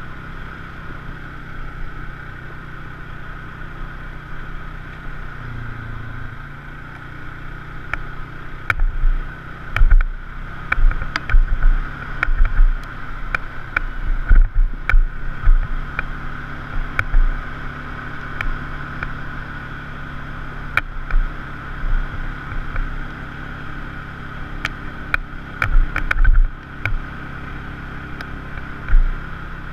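Polaris RZR side-by-side's engine running steadily while driving a rough trail, with many sharp knocks and thumps from about eight seconds in.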